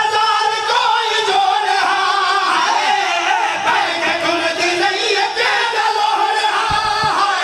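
Men singing a loud, drawn-out mourning lament into microphones, several voices overlapping with wavering held notes.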